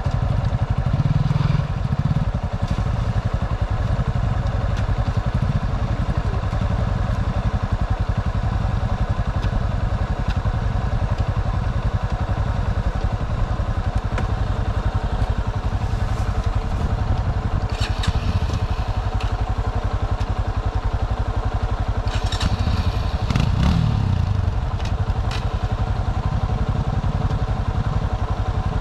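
Motorcycle engine running steadily, with a few sharp clatters and knocks in the second half.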